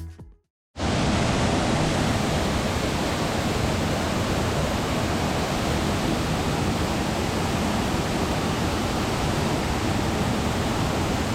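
Waterfall: a steady, even rush of falling water, starting suddenly just under a second in after a brief silence.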